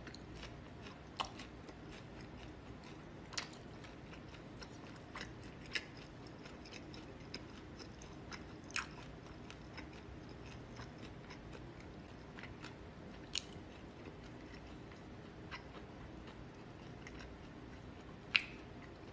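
Quiet chewing of a person eating from a plastic bowl with wooden chopsticks, with a handful of sharp clicks and smacks scattered through, the loudest near the end, over a low steady hum.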